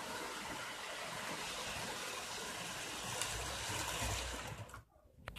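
Model train running on the layout: a steady hiss, with a low rumble as a black model steam locomotive passes close by about three seconds in. The sound cuts off suddenly near the end, followed by a couple of sharp clicks.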